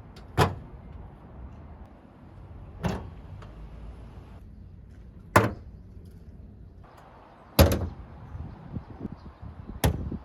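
Car bonnets being slammed shut, five in a row about every two and a half seconds; the fourth is a quick double bang and the loudest.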